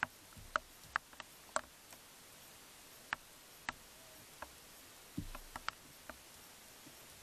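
Irregular sharp clicks and ticks, about a dozen, spaced unevenly, over faint hiss, with a soft low thump about five seconds in.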